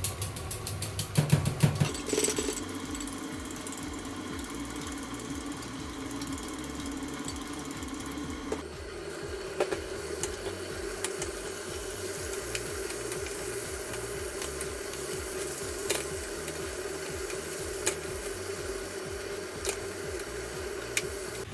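Pork and cabbage sizzling in a frying pan, stir-fried with a wooden spatula: a burst of loud knocks and sizzle about a second in as the cabbage goes into the pan, then steady sizzling with occasional clicks of the spatula against the pan, over a steady hum.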